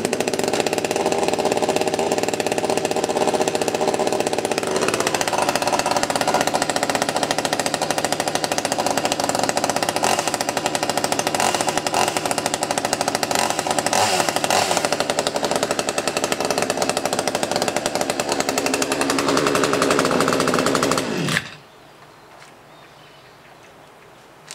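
Two-stroke chainsaw with a spring-assisted easy-start recoil starting from cold and running steadily for about twenty seconds, after having fired once on choke. Its tone shifts about five seconds in, and it cuts off abruptly near the end.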